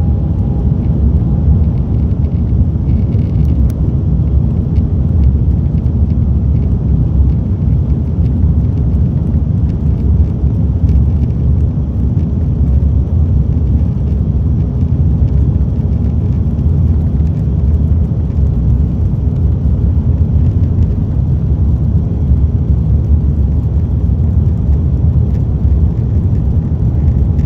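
Airbus A330neo's Rolls-Royce Trent 7000 engines at takeoff thrust, heard from inside the cabin during the takeoff roll and rotation: a loud, steady, deep rumble of engine and runway noise.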